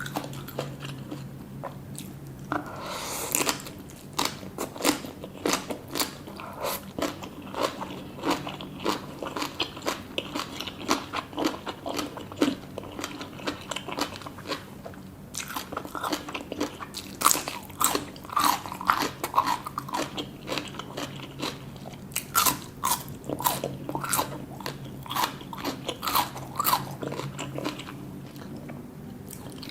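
Close-miked eating: crisp crunching and chewing, many quick crunches in a row, busiest in the second half.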